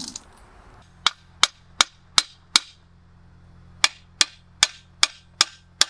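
Hammer striking a steel punch against the Eaton RS-404 truck differential carrier: sharp metallic blows with a short ring, about two and a half a second, in a run of five and then, after a short pause, a run of six.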